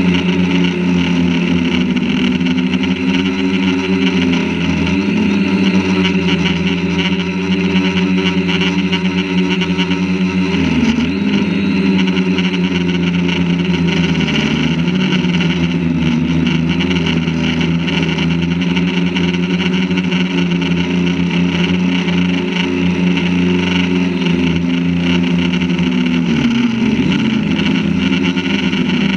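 Quadcopter drone's motors and propellers buzzing steadily in flight, heard close up from the camera mounted on the drone. The pitch dips and recovers briefly a few times as the throttle changes.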